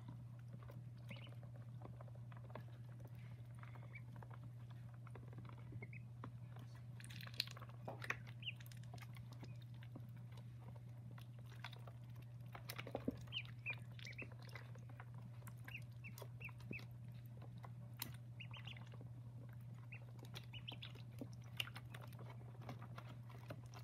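Pekin ducklings, about five days old, peeping faintly now and then, with a few soft clicks, over a steady low hum.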